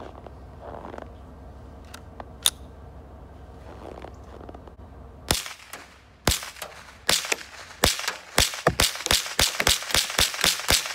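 Winchester Model 74 .22 LR semi-automatic rifle fired in a rapid string. The first few shots come about a second apart, then they quicken to about four or five a second, with the action cycling reliably in the cold.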